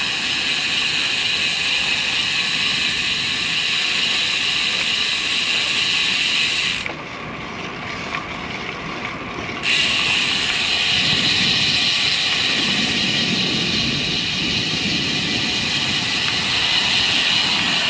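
Road bike rolling along a paved path, with steady wind and tyre noise and a rear freehub buzzing as the rider coasts. The buzz cuts out for about three seconds in the middle, then returns.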